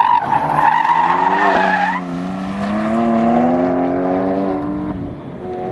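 Ford Focus ST's 2.0-litre EcoBoost turbo four-cylinder under hard acceleration on an autocross course, tyres squealing for about the first two seconds. The engine note then climbs steadily until it breaks off about five seconds in.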